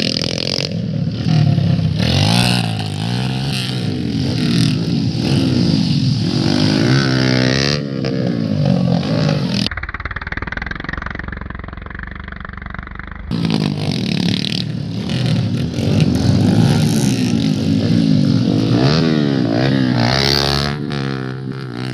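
Motocross bikes revving hard through a dirt corner, engine pitch rising and falling again and again as riders pass one after another. Near the middle, for about three seconds, the sound turns duller and a little quieter.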